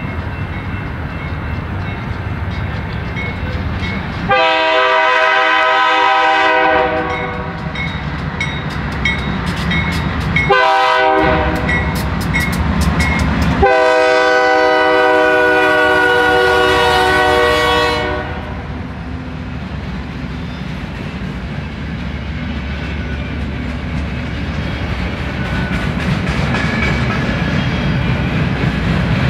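Locomotive air horn sounding a long blast, a short blast, then a longer blast of about four seconds, over the steady rumble of a train on the track.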